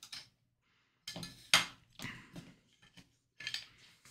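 A trading card in a hard plastic holder being set into a clear acrylic display stand on a tabletop: a handful of light plastic clicks and clinks, the loudest near the middle.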